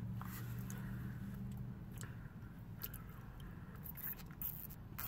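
Faint wet mouth sounds and lip smacks of a person tasting a milkshake off a drinking straw, with scattered small clicks. A low steady hum runs for about the first two seconds.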